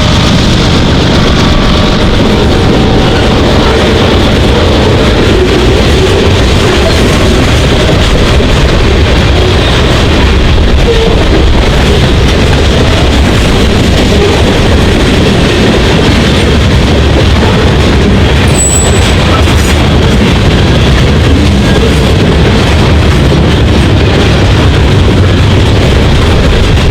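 Freight train cars rolling past, steel wheels on the rails making a loud, steady rumble. A brief high squeal comes about two-thirds of the way through.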